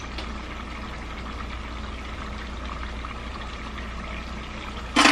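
A spoon spreading butter across slices of bread on a metal baking sheet, with soft scrapes over a steady hiss of kitchen background noise.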